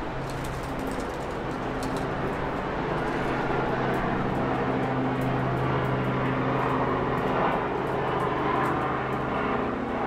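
Steady outdoor hum of distant motor traffic, with a low engine drone that swells gradually from about three seconds in and eases slightly near the end.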